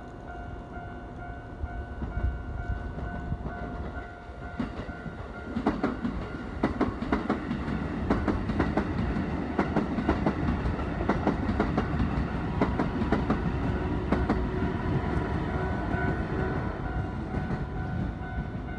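Level-crossing warning signal ringing in an even repeating beat. About five and a half seconds in, a six-car Keikyu 1000 series local train starts passing over the crossing. Its wheels clatter over the rail joints in quick clicks under a heavy rumble, with the crossing signal still sounding.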